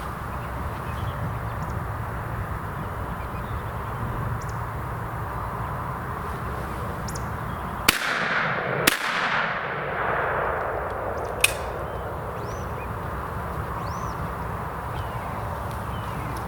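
Two 12-gauge over-under shotgun shots about a second apart, each followed by a long echo that fades away, then a single sharp crack a few seconds later. The shots come over a steady low outdoor background with faint bird chirps.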